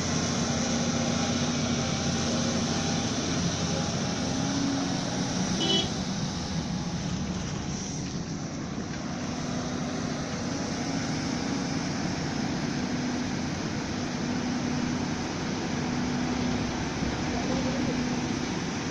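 Volvo excavator's diesel engine running steadily, with people's voices under it.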